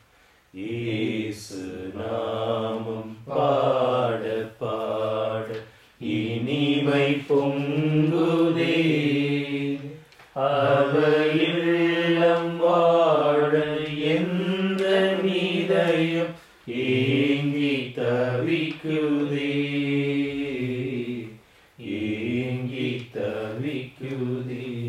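A man singing a slow Tamil devotional hymn in long drawn-out lines with gliding notes, pausing briefly for breath between lines.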